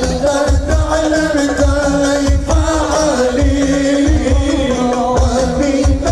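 Sholawat, an Islamic devotional song, sung over amplified music with a steady beat of deep hand-drum hits several times a second, the melody line gliding between held notes.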